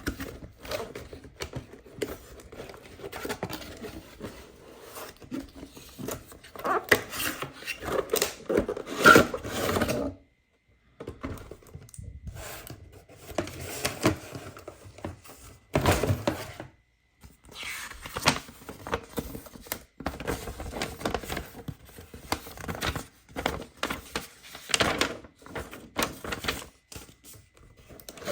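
A toy's packaging being handled and opened: irregular rustling, scraping and knocking of cardboard and plastic, broken by two brief silent gaps.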